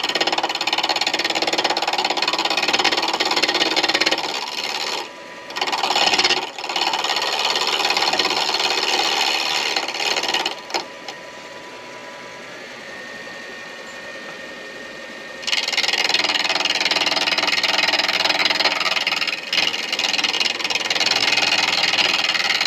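Pen blank of driftwood and deer antler spinning on a midi lathe while a turning tool cuts it: a loud, rough scraping. It stops for about four seconds midway, leaving only the lathe's steady hum, then the cutting starts again.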